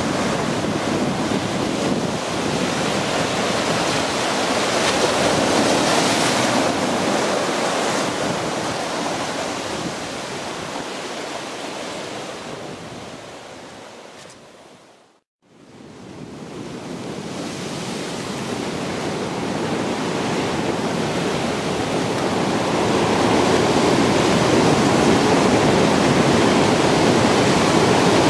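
Ocean surf breaking and washing over lava rocks, a steady rushing noise. It fades out to silence about halfway through and fades back in, louder near the end.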